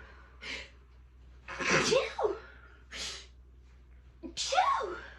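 A woman sneezing in a fit: several sneezes and sharp breaths in quick succession, the loudest about two seconds in and another near the end.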